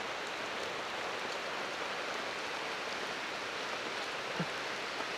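Steady hiss of heavy rain falling in the rainforest.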